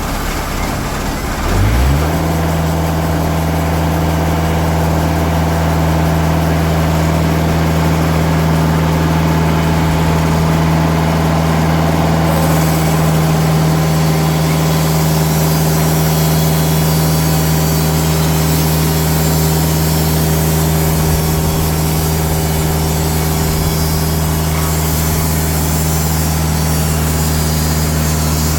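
Diesel engine of a TimberKing bandsaw mill revving up about two seconds in, then running steady at cutting speed. From about twelve seconds in a higher hiss joins it as the band blade saws into a black walnut log.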